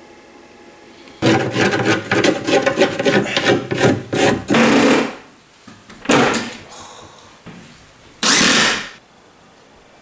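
Rapid rasping strokes of a hand tool working material, in a run of about four seconds, then two shorter single bursts.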